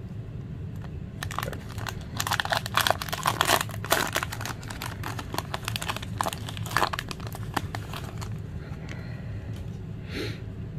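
Foil wrapper of a Pokémon Battle Styles booster pack crinkling and tearing as it is opened, in a dense run of sharp crackles that thins out in the last few seconds.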